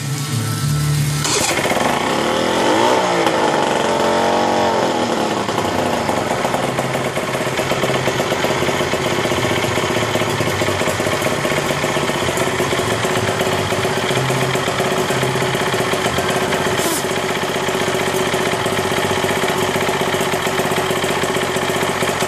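Outboard motor with its cowling off, running out of the water on a garden-hose flush attachment. It revs up and back down a couple of seconds in, then runs steadily, with water splashing from the lower unit.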